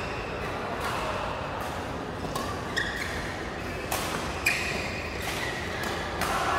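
Badminton doubles rally: rackets striking the shuttlecock again and again, sharp hits roughly once a second, with short squeaks from shoes on the court floor.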